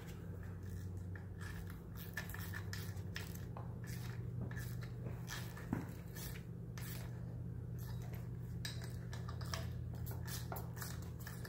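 Metal hand tools and parts clinking and knocking irregularly against the transmission's drive flange, over a steady low hum.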